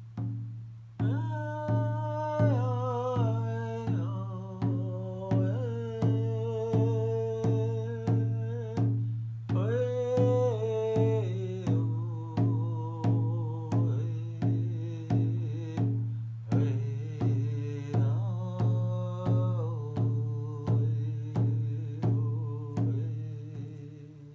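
A voice singing phrases that step down in pitch over a steady drum beat, about three beats every two seconds, fading out near the end.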